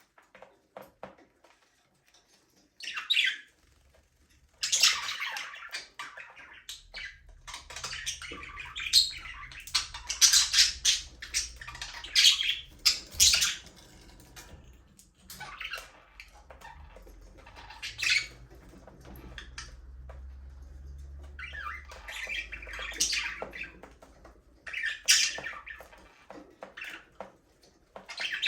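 A flock of budgerigars chirping and chattering in irregular bursts, with a few seconds of near quiet at the start and dense chatter in the middle.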